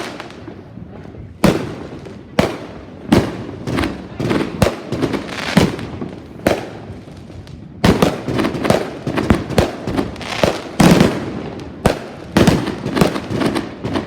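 Fireworks going off: a run of sharp bangs at irregular intervals, some coming in quick clusters, each trailing off into a short echo.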